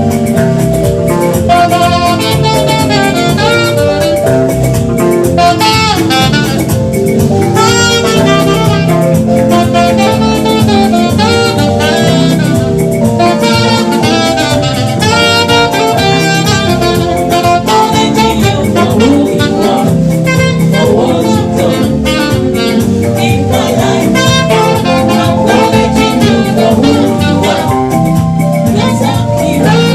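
Jazzy gospel band music led by a saxophone playing melodic runs over a steady band accompaniment.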